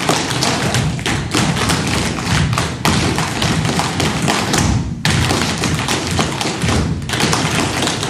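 Many dancers' shoes, heels among them, stepping, stamping and tapping on a studio floor, the footfalls of the group overlapping in a busy rhythm.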